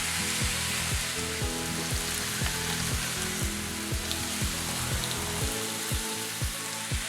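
Meat sizzling on a Korean barbecue grill: a steady frying hiss under background music with a kick-drum beat about twice a second.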